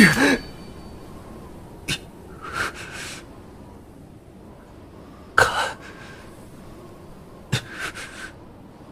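A voice actor's short, sharp breaths and gasps, about five separate bursts a second or two apart, over a faint steady hiss.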